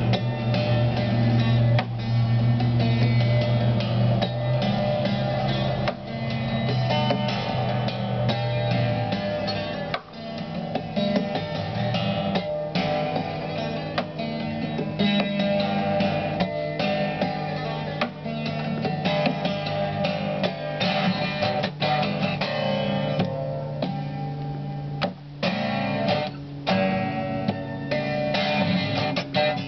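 Guitar played live: a steady stream of plucked notes over held low bass notes, the bass note changing about ten seconds in.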